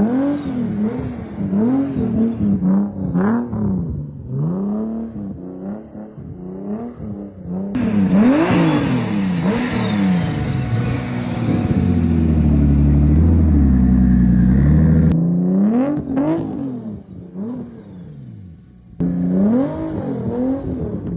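Turbocharged car engine revved in quick rhythmic blips, each one rising and falling. About eight seconds in it is held at higher revs for several seconds with a turbo whistle, then drops back, and the quick blips return near the end.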